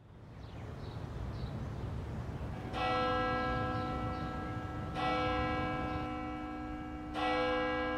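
A church bell tolling, three strokes about two seconds apart, each ringing on at the same pitch, over a low rumble that fades in at the start.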